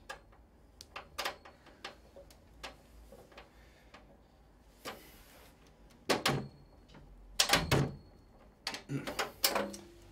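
Flathead screwdriver working at the captive screws of a Macintosh XL's plastic case: scattered clicks, scrapes and knocks, sparse at first, with a cluster of louder knocks in the second half.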